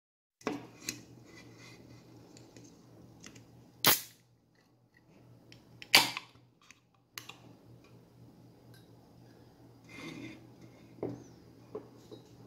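A ring-pull can of carbonated sarsaparilla soda is cracked open about six seconds in, with a sharp pop and a brief hiss of escaping gas. Around it are clicks and knocks of the aluminium can and a ceramic mug being handled on a wooden table, over a low steady hum.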